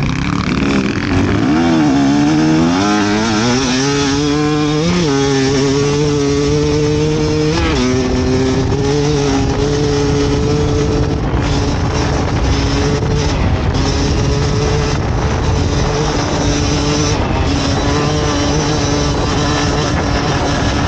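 Fantic XE 300 two-stroke enduro motorcycle engine running hard under load. It climbs in pitch over the first few seconds, blips briefly about five and eight seconds in, then holds a steady pitch.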